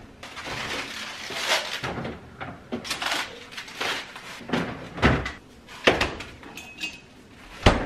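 Refrigerator door being opened and food handled on its shelves: a string of knocks, clatters and rustles, with a heavy thud near the end.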